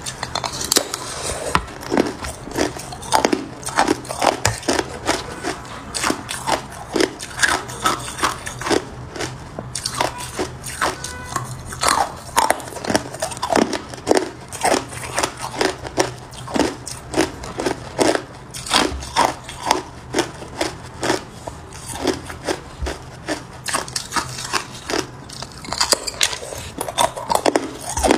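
A person biting into a slab of hard clear ice and crunching the pieces, a quick irregular run of sharp cracking crunches, a few each second, over a faint steady low hum.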